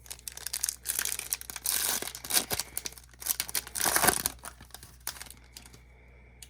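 Foil wrapper of a Topps Chrome trading-card pack being torn open and crinkled, a run of rips and rustles loudest about two and four seconds in, stopping about five seconds in.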